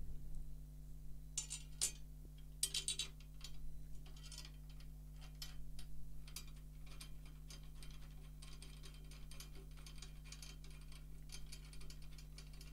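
Snare drum tension rods being screwed down finger-tight by hand, one after another, to seat a new batter head: a string of small, irregular metallic clicks and ticks.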